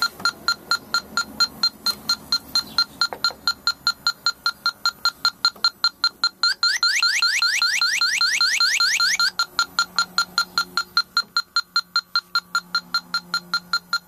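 Electronic refrigerant leak detector ticking with rapid beeps, about five a second. For about three seconds in the middle it switches to a loud warble of fast rising chirps, its alarm that it is picking up leaking R22 refrigerant at the dual pressure switch. It then drops back to ticking.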